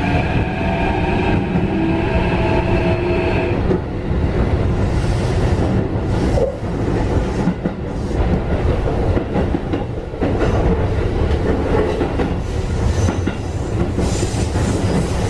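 Keikyu 1500 series electric train running, heard inside its motor car: the Mitsubishi IGBT-VVVF inverter whines with tones rising slightly in pitch for about three and a half seconds, then cuts out. After that only wheel-on-rail rumble remains, with frequent clicks from rail joints.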